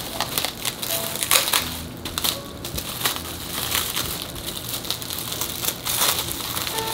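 Clear plastic cling wrap crinkling and crackling in irregular bursts as hands pull it tight and fold it around a sandwich.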